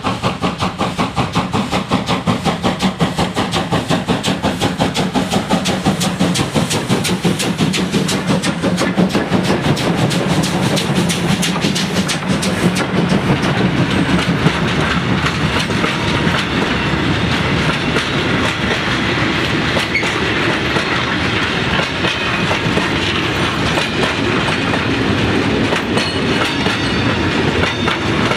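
Class 52 'Kriegslok' 2-10-0 steam locomotive working hard with a freight train: fast, even exhaust beats as it comes up and passes. About halfway through, these give way to the steady rolling and clickety-clack of the freight wagons' wheels going by.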